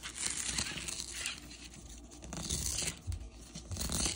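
Cardboard FedEx Express envelope being torn open along its pull-to-open strip: paperboard tearing in several short bursts.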